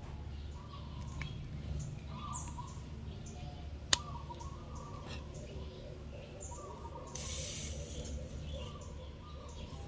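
Small birds chirping in short, repeated calls over a low steady hum, with one sharp click about four seconds in and a brief hiss about seven seconds in.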